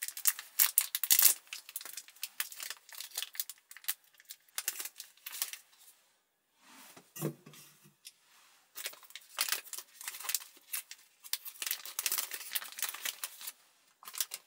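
Plastic wrappers being crinkled and torn open by hand: runs of quick rustles and crackles, with a short lull and a brief low sound about seven seconds in.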